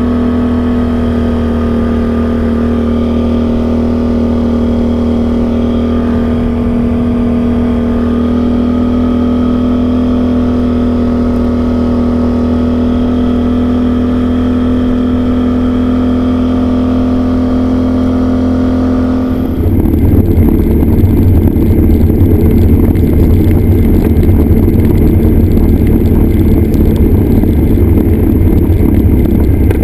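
Can-Am Outlander XMR 850 ATV's V-twin engine running at a steady cruising speed. About two-thirds of the way through, the sound changes suddenly to a louder, rougher engine sound with a thin high whine over it.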